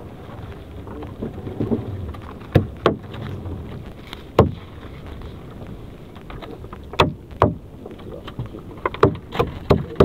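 Gloved hands pulling a swimming crab out of a nylon gill net: rustling and scraping of net mesh and plastic sheeting, with a scatter of sharp clicks and knocks, about eight in all, over a steady low background noise.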